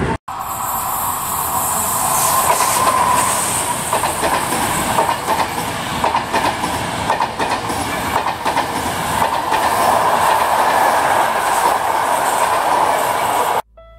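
Passenger train coaches rolling past on the track, wheels clicking over the rail joints over a steady rolling hum. The sound cuts out briefly just after the start and stops abruptly near the end.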